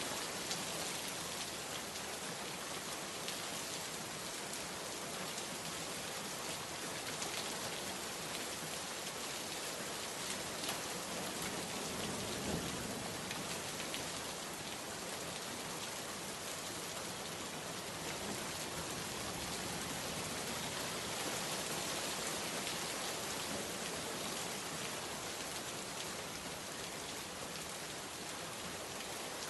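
Steady heavy rain falling, a dense even hiss of drops, with a brief low rumble a little before halfway.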